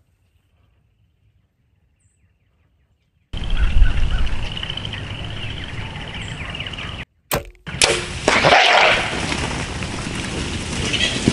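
Near silence, then outdoor sound cuts in with wind rumbling on the microphone and a steady high chirring. About four seconds later comes a sharp snap, a compound bow shot at feral hogs, then a loud rush of noise as the hogs scatter.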